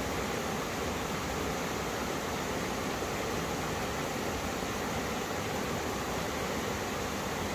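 Mountain stream water rushing and splashing over rocks where two valley streams meet, a steady full-range rush without change.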